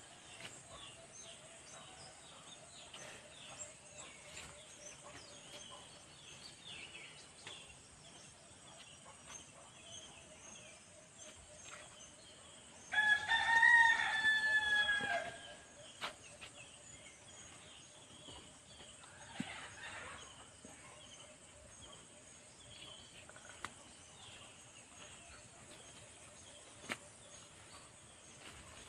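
A rooster crows once, a single long call about halfway through, over a faint outdoor background of scattered small chirps and a few light clicks.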